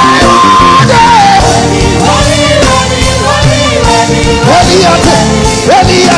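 Worship song: a lead voice holds a long high note for about a second, then slides through further sung notes over steady instrumental backing.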